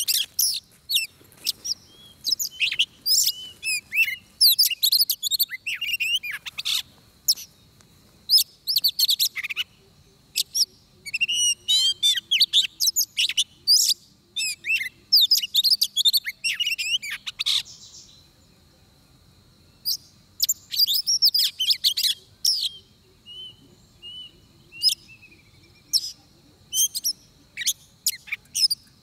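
Oriental magpie-robin singing: rapid, varied high whistled phrases in dense bursts, with a short break about two-thirds of the way in. A faint steady high tone runs underneath.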